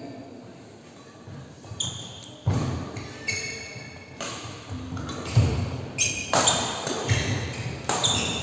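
Badminton rally: sharp racket strikes on the shuttlecock and short, high squeaks of shoes on the wooden court. The hits come faster and louder from about two and a half seconds in.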